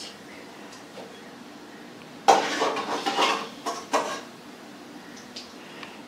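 A metal spoon scraping and clinking against a steel kadai of hot frying oil as fried baby corn pieces are scooped out. The clatter starts suddenly about two seconds in, lasts about two seconds and has a couple of sharp clinks.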